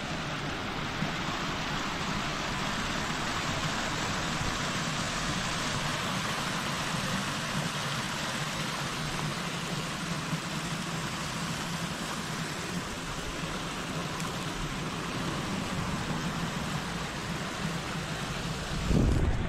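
Steady rush of flowing stream water picked up by a GoPro, an even hiss with no pauses, with a short low thump near the end.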